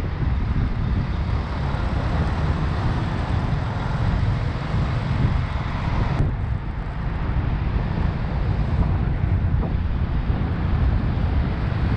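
Wind buffeting the microphone of a moving motorbike, with steady road and traffic noise beneath it. A single sharp click about six seconds in.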